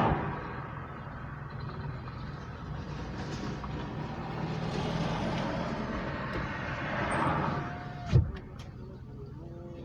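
Road traffic: vehicles passing one after another, each swelling and fading over a steady low hum. A single sharp knock a little past eight seconds in is the loudest sound.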